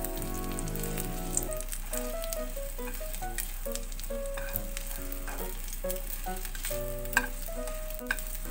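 Mochi rice cakes sizzling as they shallow-fry in butter and oil in a frying pan, with stirring as they are turned over with chopsticks. A few sharp clicks stand out, the loudest about seven seconds in.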